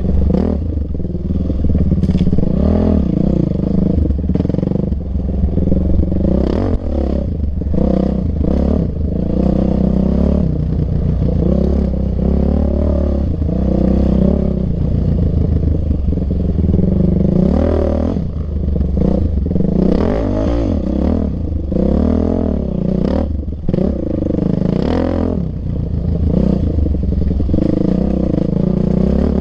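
Yamaha YZ450F's single-cylinder four-stroke engine revving up and down over and over under riding load, with frequent clattering knocks throughout.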